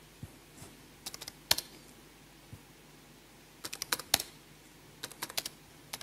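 Computer keyboard being typed on: short commands tapped out in three quick bursts of keystrokes, about a second in, near four seconds and just after five seconds.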